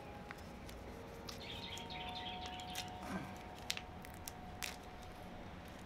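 Faint crinkling and scattered small clicks of a small plastic snack wrapper being handled and torn open.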